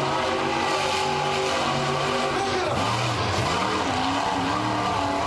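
Monster truck engine running loud, its revs holding steady, then dropping and climbing again about halfway through as the truck manoeuvres on the dirt.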